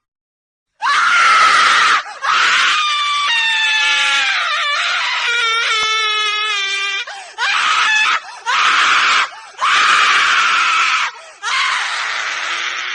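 A woman screaming repeatedly: after a moment of silence, a series of loud screams with short breaths between them. The longest, in the middle, turns into a pitched wail that slides downward before breaking off, followed by four shorter screams.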